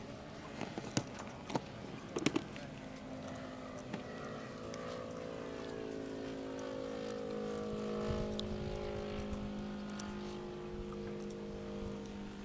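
Radio-controlled aerobatic model plane flying overhead: its motor and propeller give a steady hum that drifts slowly in pitch and grows louder toward the middle, then eases off. A few sharp clicks come in the first couple of seconds.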